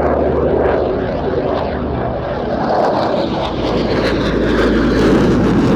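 A formation of military aircraft flying past: a PC-9M turboprop, Eurofighter jets and an A400M transport, giving a steady roar of jet and propeller engines that grows louder and brighter over the last couple of seconds.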